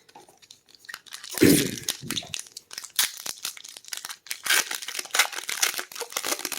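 Foil plastic wrapper of a trading-card booster pack crinkling and crackling in the hands, with some tearing, in a dense run of crackles. A dull low thud about a second and a half in is the loudest moment.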